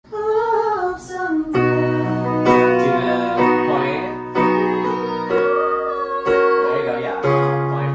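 A girl singing, alone at first, then accompanied from about a second and a half in by keyboard chords struck roughly once a second.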